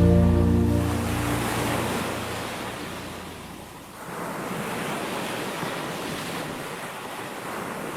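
Ocean waves washing ashore, a steady rush of surf that swells and ebbs, dipping lowest about four seconds in. Soft sustained music fades out within the first second or two.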